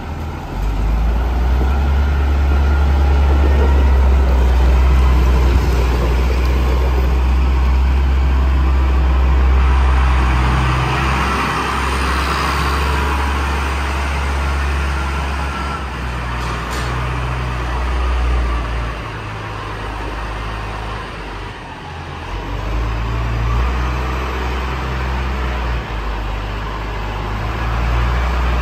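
Massey Ferguson tractor's diesel engine running under load with a deep, steady rumble as the front loader lifts and carries hay bales. The engine sound changes abruptly twice, about ten and twenty-two seconds in.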